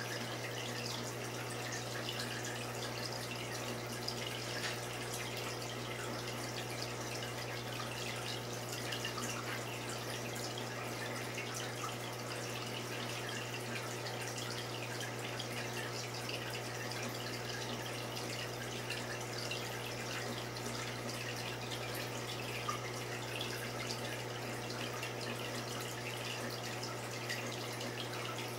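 Saltwater aquarium's water circulation: a steady trickle and drip of water with a constant low hum underneath.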